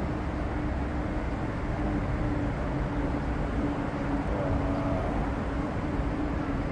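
Steady outdoor background rumble with a constant low hum throughout.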